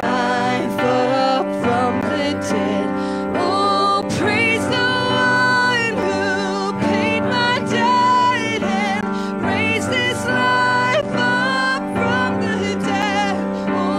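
Live contemporary worship song: a woman sings lead at an electronic keyboard with backing singers, over steady held keyboard chords.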